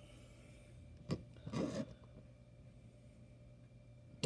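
Handling noise from a small diecast toy car being picked up and turned in the hands: a click about a second in, then a short rubbing scrape.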